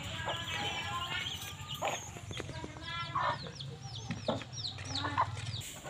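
Birds calling in the background: chicken-like clucks and several short high chirps, over a steady low hum that stops near the end.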